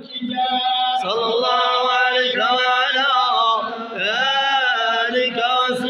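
Men's voices chanting a madih, a praise song for the Prophet Muhammad, in long melodic lines with held notes that glide and bend in pitch.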